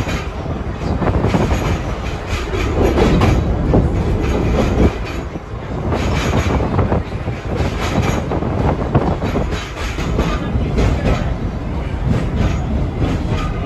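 1947 Melbourne tram rolling along steel rails, heard from inside the car: a loud, steady rumble of wheels and running gear with repeated clacks over the rail joints.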